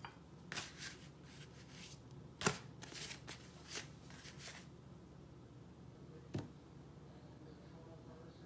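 Pancakes being handled and laid onto paper plates: a string of short papery rustles and soft taps, with a sharper knock about two and a half seconds in and another about six seconds in.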